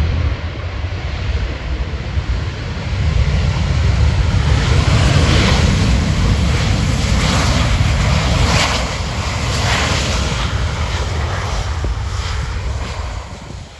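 Boeing 737 jet engines during landing: a loud low rumble with a rushing hiss that swells a few seconds in and fades away near the end.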